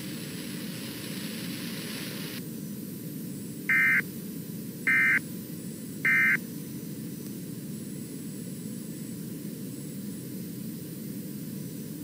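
Emergency Alert System end-of-message code: three short bursts of digital data tones, about a second apart, over a steady hiss of broadcast static.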